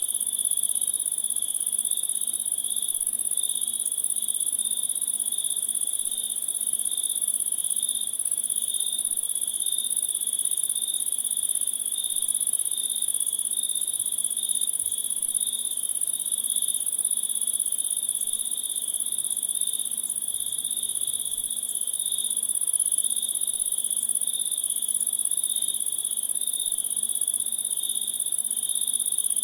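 A chorus of crickets chirping without a break: a very high, continuous buzz over a lower, pulsing trill.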